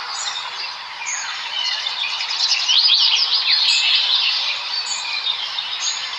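Many small birds chirping and chittering together over one another, with a dense run of quick chirps about halfway through and short high calls recurring every second or so.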